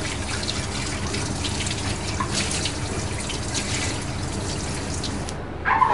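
Kitchen tap running into a stainless steel sink as dishes are rinsed under the stream, water splashing off a plate. The flow cuts off about five seconds in, followed by a short knock.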